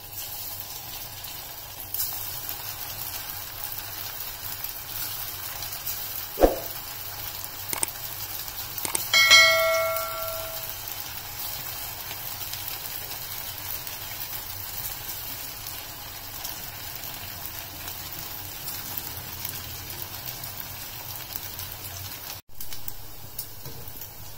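Rice-and-gram-flour pakoda batter deep-frying in hot oil in a steel pan: a steady sizzle. A sharp knock comes about six seconds in, and a metallic clink about nine seconds in rings on for about a second.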